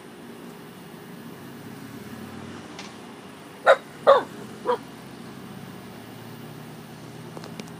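A puppy gives three short, sharp play barks in quick succession about halfway through, over a steady low background hum.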